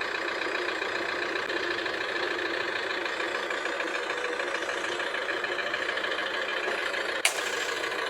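Toyota Land Cruiser Prado engine idling steadily, with one sharp click about seven seconds in.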